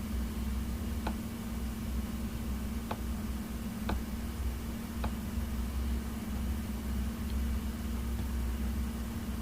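Steady low electrical hum in the background, with four faint computer mouse clicks spread over the first five seconds.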